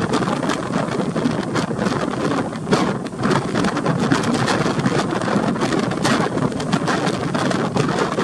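Strong wind buffeting the microphone aboard a ship at sea: a dense, steady rush broken by many short crackles.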